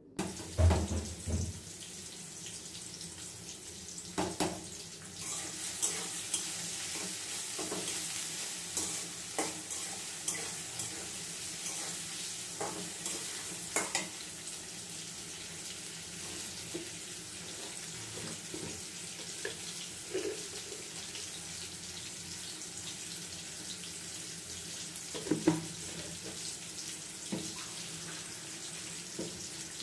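Food sizzling in a frying pan: a steady hiss with scattered clinks and knocks from a utensil against the pan.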